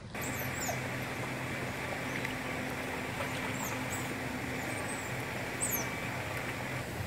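Outdoor pond ambience: a steady low machine hum over an even hiss, with scattered short high chirps. The hum stops near the end.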